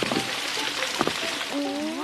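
Light cartoon background music over a steady hiss of water spraying and leaking from a burst water pipe, with a short rising slide in the music near the end.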